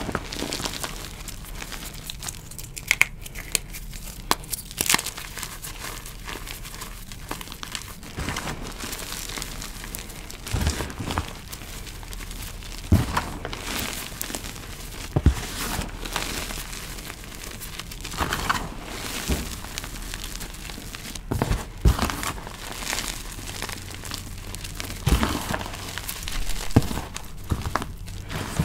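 Hands crushing and squeezing dyed gym chalk powder and clumps: a soft, continuous crumbling crunch with irregular sharp crackles.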